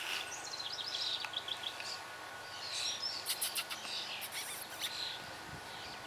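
Birds chirping and calling again and again, with a few brief sharp clicks around the middle.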